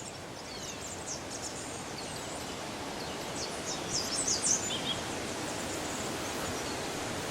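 Forest ambience: a steady background hiss with faint, high-pitched bird chirps, bunched together about four seconds in.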